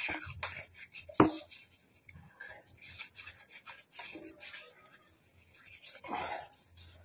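Hands rubbing against each other, skin sliding over skin smeared with a mask paste, in scattered soft rubbing strokes. A single sharp click about a second in, and a louder rub near the end.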